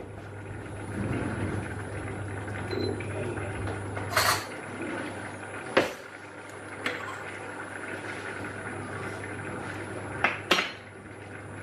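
Rice and green beans bubbling steadily in broth in a stainless steel pot, with a metal spoon clinking against the pot a few sharp times as broth is scooped out to taste, twice in quick succession near the end.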